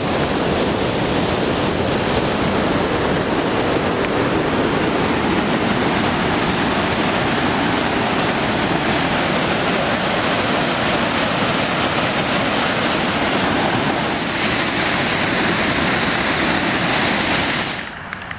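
Brown floodwater rushing and churning in a torrent, a loud, steady rush of water that falls away sharply near the end.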